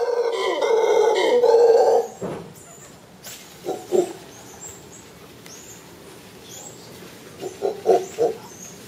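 Mantled howler monkey calling: a loud, deep howl that stops suddenly about two seconds in, followed by short low grunts, two around the middle and a quick run of about four near the end.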